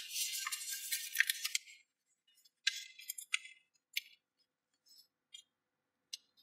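A sheet of paper rustling and crackling as hands fold and crease it: a dense rustle for about the first two seconds, then scattered short crinkles.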